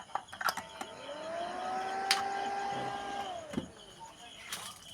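A small electric motor spinning up to a steady whine, running for about two seconds, then winding down, with a few clicks before it and one sharp click while it runs.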